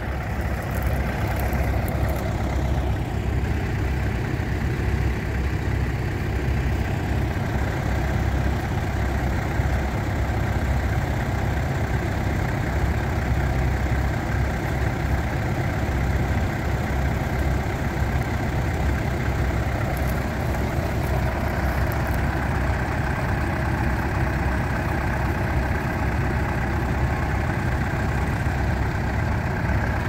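Vintage tractor engine running steadily at low revs with a deep, even note while the tractor pulls a mounted two-furrow plough.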